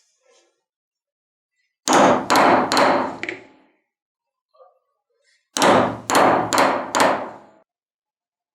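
Hammer blows in two quick runs of about five strikes each, the first about two seconds in and the second around five and a half seconds in.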